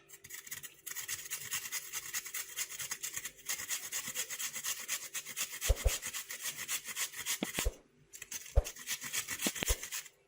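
Fresh ginger root being grated by hand on a grater: quick, steady rasping strokes with a short break about eight seconds in. A few dull knocks come in the second half.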